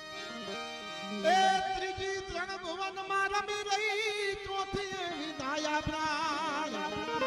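Santvani devotional folk music: harmonium and keyboard play a stepping melody, then about a second in a male voice enters on a long held note and wavers into an ornamented run, over tabla strokes.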